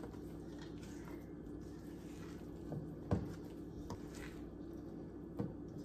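Spatula stirring thick muffin batter in a stainless steel mixing bowl: faint squishing and scraping, with a couple of sharper knocks against the bowl, the loudest about three seconds in.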